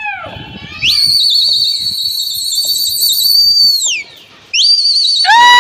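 A pigeon flyer's shrill whistle with a warbling trill, held for about three seconds. After a short break a second whistle starts, and near the end a lower, louder held call joins it.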